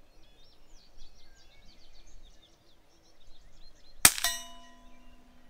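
A single quiet shot from a Savage Mark II bolt-action .22 rifle firing an Aguila Super Colibri round, a primer-propelled load with no powder, about four seconds in. A fraction of a second later the bullet strikes a steel target, which rings on with a steady ding. Birds chirp faintly before the shot.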